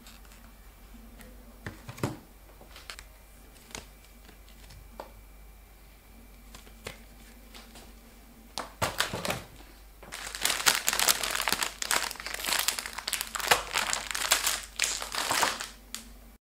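Grocery packages set down on a tabletop with a few light knocks, then plastic snack bags crinkling steadily for several seconds as they are handled and moved, starting about ten seconds in.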